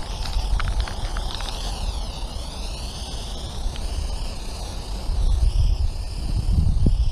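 Aerosol spray-paint can hissing steadily as it lays broad strokes of paint, its hiss sweeping up and down as the can moves. Strong wind buffets the microphone with a low rumble, gusting harder near the end.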